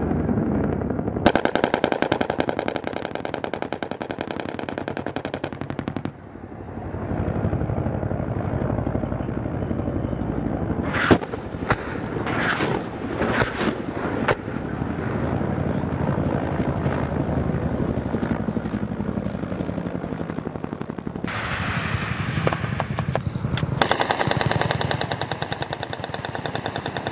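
Rapid-fire gun on an attack helicopter firing two long sustained bursts, the first starting about a second in and lasting about five seconds, the second starting a few seconds before the end. Between the bursts is a steady rumbling noise with a handful of sharp cracks.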